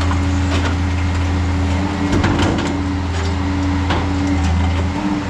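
Hydraulic alligator shear's power unit running steadily, its hum wavering about two seconds in as the shear cycles, with a few sharp metal knocks.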